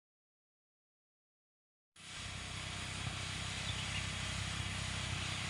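Silence for about two seconds, then a STIHL MS 381 chainsaw's two-stroke engine idling steadily.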